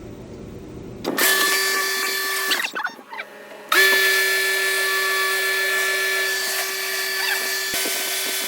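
An electric motor running with a steady whine over a hiss. It starts about a second in, stops for about a second, then starts again and runs on.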